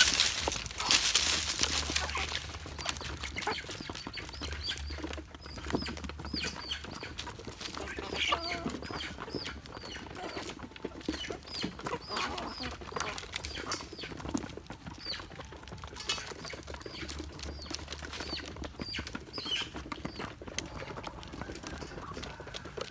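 Ducks and chickens calling around feed, with many short high peeping calls repeating throughout. A loud rustle comes in the first couple of seconds.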